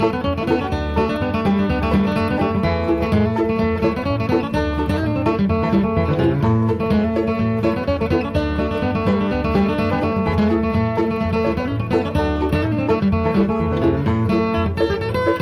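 Background music: bluegrass-style picking on banjo and guitar with a steady beat.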